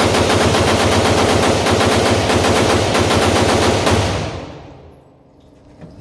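An AR-15-pattern rifle emptied in one rapid, continuous string of shots: a mag dump. The firing stops about four seconds in and echo trails off over the next second.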